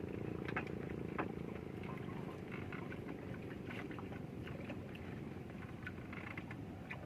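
A small engine running steadily; its hum fades about a second in, leaving a low rumble, with scattered short high chirps over it.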